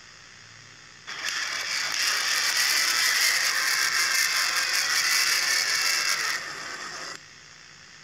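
A loud, fast mechanical rattling clatter with a high hiss over faint static, starting about a second in, easing a little near the end and cutting off suddenly about seven seconds in.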